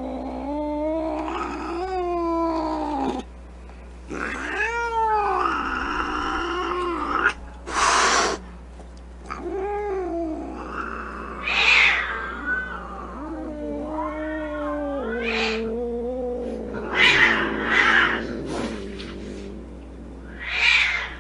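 Angry cat yowling and growling in long, wavering calls that rise and fall in pitch, broken by several sharp hisses.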